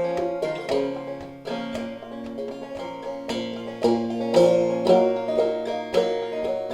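Solo five-string banjo played clawhammer style, an instrumental break in a minor key: plucked notes over ringing open drone strings, in an open tuning lowered to B flat minor.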